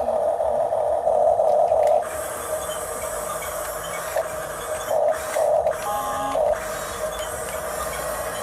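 Electric drive motors and gearboxes of a Huina 1569 radio-controlled toy bulldozer whining, loud for about two seconds, then in several short surges as the tracks and blade are driven in bursts.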